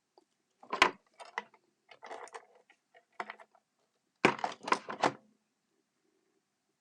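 Paper and craft pieces handled on a work table: a sharp tap about a second in, a few light rustles and clicks, and a louder run of rustling taps near the end.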